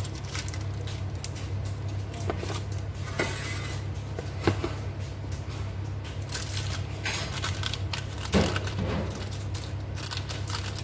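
Parchment paper crinkling and rustling as a baked loaf is lifted by its paper lining out of a loaf pan and set into a ceramic dish, with a couple of sharper knocks. A steady low hum runs underneath.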